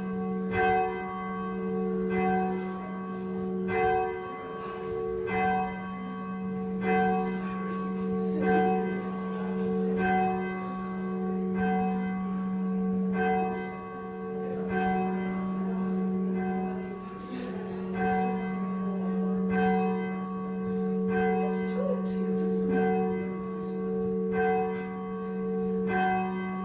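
A church tower bell rung by its rope, striking evenly about once every second and a half, each stroke's ringing hum carrying on into the next.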